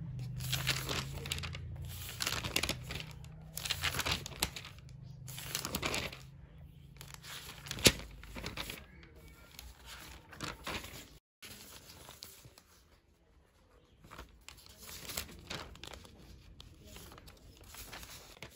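Paper pages of a notebook being turned and flipped: a series of rustles and swishes, louder in the first half and fainter later, with one sharp tap just before eight seconds in.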